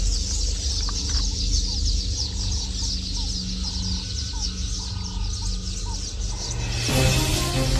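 Wild birds chirping in a dense high chorus, with a lower clucking call repeated about twice a second over a low rumble. Music comes in near the end.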